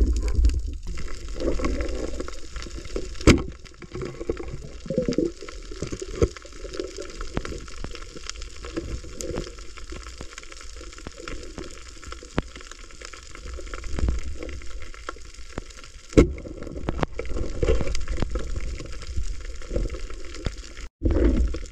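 Underwater sound picked up by a diver's camera: a steady low rumble of water moving around the housing, with swelling swishes and occasional sharp clicks, two of them loud, about three seconds in and about sixteen seconds in.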